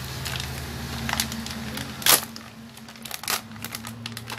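Plastic packaging of floam (foam-bead clay) being handled and pulled open: irregular crackles and clicks, with one sharp snap about two seconds in.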